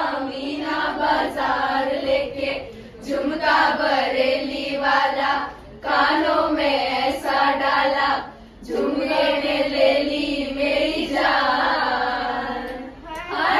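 Female voices singing together in a slow, chant-like song, in phrases of a few seconds with short pauses between them.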